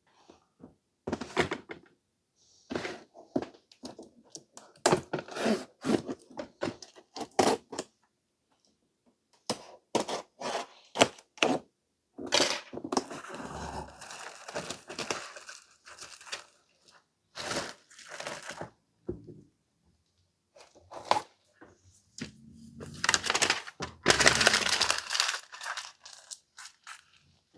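Hands handling a laptop and its parts: a series of sharp knocks and clicks, with two longer stretches of rustling, one about halfway through and one near the end.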